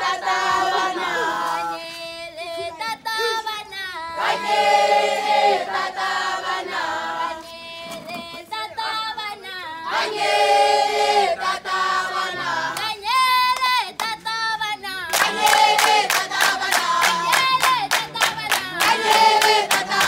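A group of voices singing together in chorus, with steady rhythmic hand clapping joining in about three-quarters of the way through.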